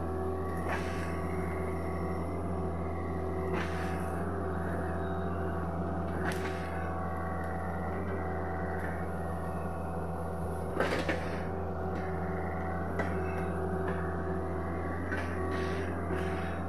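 Sany SY75C excavator's diesel engine running steadily under work, with sharp knocks and cracks every few seconds, the loudest about eleven seconds in.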